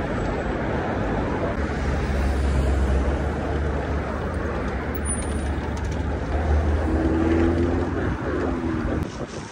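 Road traffic noise on a city street, with the low rumble of a passing vehicle's engine swelling twice, and a short higher tone near the end.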